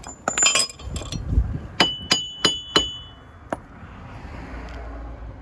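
Metal-on-metal clinks as tools and the wheel hub assembly are worked on: a jumble of small clinks, then four sharp ringing taps about a third of a second apart and one more about a second later.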